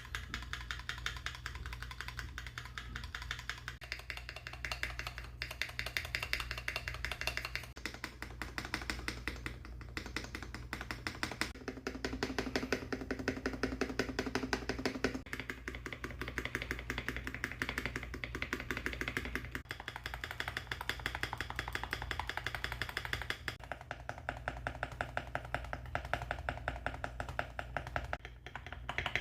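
Keyboard space bars tapped rapidly over and over, a quick string of clacks whose tone changes every few seconds as a different space bar is played.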